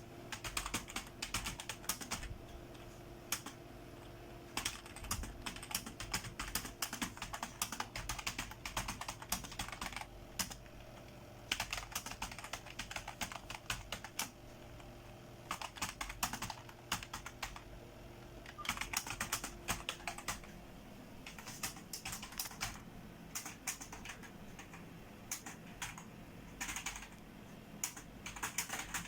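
Typing on a computer keyboard: quick runs of key clicks broken by short pauses of about a second.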